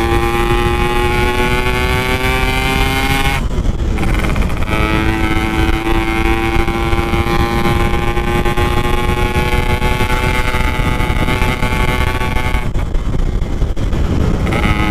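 Yamaha RX-King 135cc two-stroke motorcycle riding at speed, its engine note held high and slowly climbing. The note drops out twice, about three and a half seconds in and again near the end, then picks up again at a slightly lower pitch. Wind rumble runs under it.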